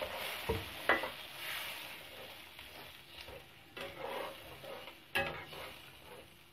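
Steel spatula stirring a thin mustard-and-poppy-seed gravy in a kadai, scraping and knocking against the pan a few times, over a light sizzle that fades as the freshly added water heats.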